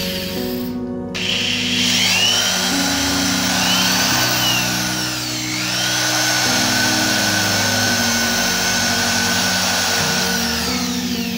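Corded electric drill running, its whine rising and falling in pitch as the trigger is squeezed and eased, starting about a second in, over background music.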